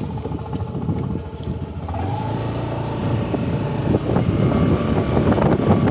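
Honda Activa 6G scooter braking hard on both brakes from about 40 km/h, heard from the rider's seat as a low engine and road rumble. A faint steady whine comes in about two seconds in as the scooter slows.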